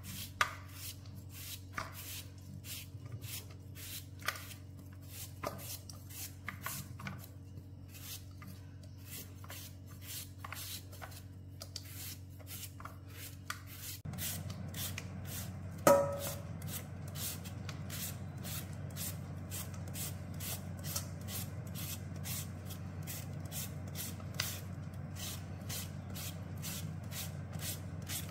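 A peeled mango being shredded into thin strips with a blade over a steel bowl, in repeated short scraping strokes that become faster and more even about halfway through. Partway through there is a single loud knock with a brief ring.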